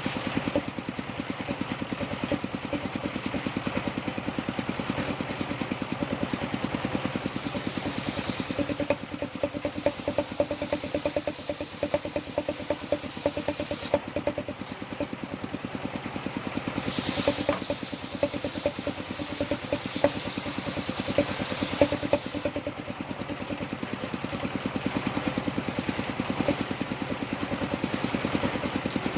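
Engine powering sawmill machinery, running steadily with a rapid even pulse, with louder irregular knocks through the middle.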